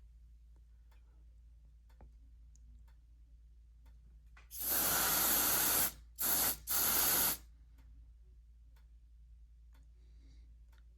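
Aerosol smoke-detector tester (canned smoke) sprayed at a smoke detector to test it: one long spray about halfway in, then two shorter sprays in quick succession.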